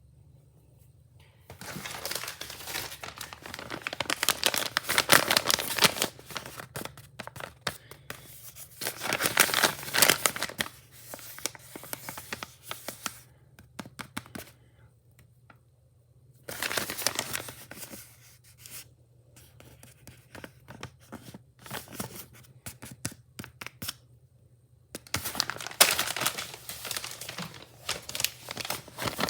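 Wrapping being torn off by hand and crumpled, in several bouts of tearing with quiet pauses of a few seconds between.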